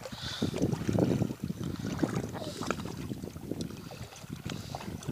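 Shallow pond water splashing and sloshing in small, irregular splashes as children wade and paddle through it.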